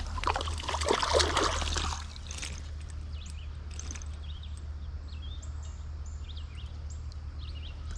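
Creek water running with a steady low rush, small birds chirping again and again over it. A louder noisy burst fills the first two seconds.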